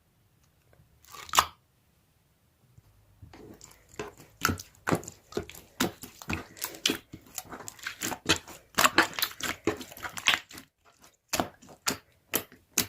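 Slime being played with by hand: a short crackle about a second in, then a run of irregular crackles and pops from about three seconds on.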